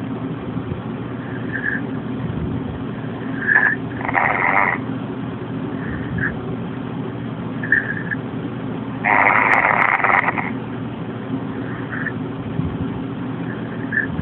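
A man snoring in his sleep: two snores about five seconds apart, a short one about four seconds in and a longer one about nine seconds in. A steady low hum runs underneath.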